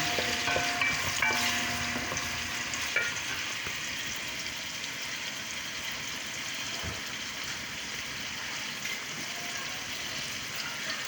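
Food frying in hot cooking oil in a pan: a steady sizzling hiss, a little louder in the first few seconds.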